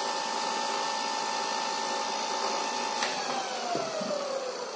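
24-volt, 250-watt brushed DC e-bike motor with a chain sprocket, running free with no load and giving off a steady whine. About three seconds in there is a click, and the motor coasts down, its whine falling steadily in pitch.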